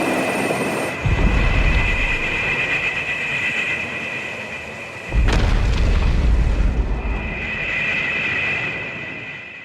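Edited Godzilla and Gamera monster-movie sound effects: a long, steady high screech layered with two heavy booms, about one and five seconds in, fading out near the end.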